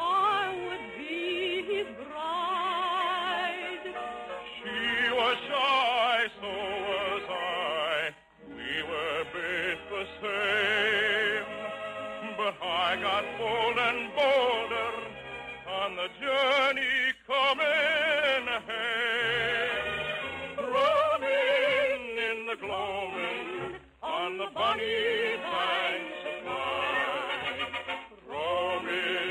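Operatic-style singing with heavy vibrato, phrase after phrase with short breaks between, over a musical accompaniment. It is heard through an old, narrow-band 1951 radio transcription recording.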